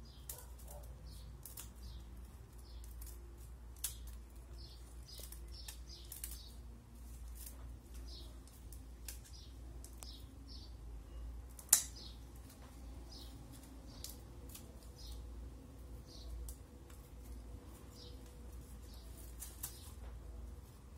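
Scissors snipping and trimming thin wooden sticks: scattered sharp clicks, with one much louder crack about twelve seconds in. Small birds chirp repeatedly in the background.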